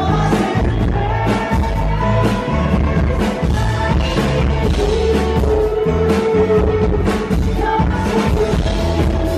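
Live rock band playing loudly through a PA: a male lead singer sings over electric guitar and a steady drum beat.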